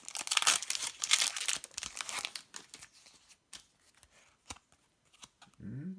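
Foil wrapper of a LEGO Ninjago trading-card booster pack being torn open and crinkled for about two seconds. Then faint clicks and rustles follow as the cards are slid out of the pack.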